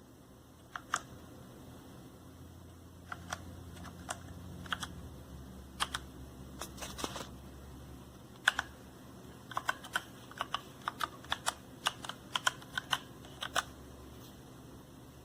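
Keys of a mechanical keyboard being pressed in irregular clicks: a few scattered presses at first, then quicker runs of keystrokes from about two-thirds of the way in.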